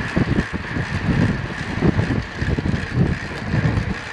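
Wind buffeting the microphone of a camera on a track bike moving at about 20 mph, heard as irregular low gusty rumbles. A steady high-pitched hum runs underneath.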